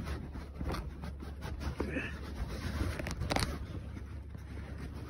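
A rubber snowmobile drive belt is worked by hand onto the Blizzard 850 E-TEC's clutch, giving scattered rubbing, scraping and small clicking sounds. A louder scrape comes a little after three seconds in.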